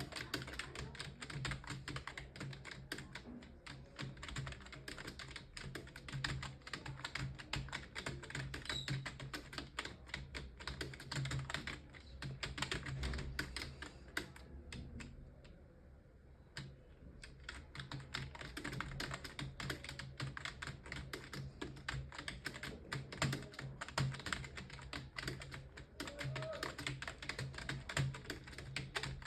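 Fast continuous typing on a computer keyboard, a dense run of keystroke clicks with a short pause about halfway through.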